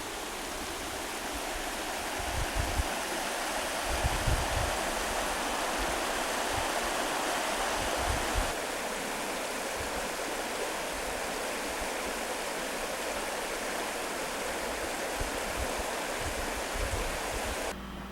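Steady rushing of a stream's flowing water, with occasional low bumps on the microphone. The sound cuts off suddenly near the end.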